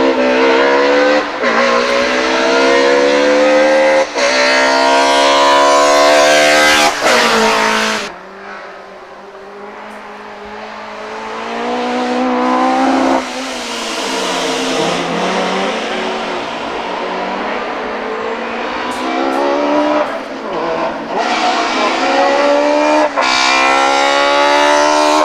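Race car engine at high revs accelerating hard up through the gears, its note rising and cutting briefly at each upshift, three times in the first eight seconds, then fading out. Engine sound builds again and climbs through two more upshifts near the end, with some tyre noise.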